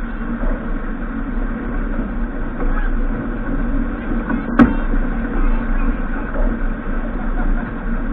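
Steady rushing noise of wind and water aboard a racing sailboat under way, with one sharp click just past the middle.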